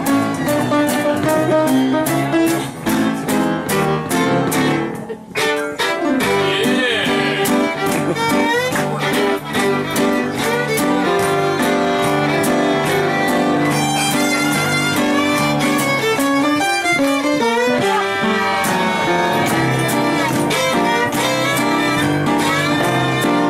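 Fiddle playing a swing tune over a strummed acoustic guitar, with a brief drop in the music about five seconds in.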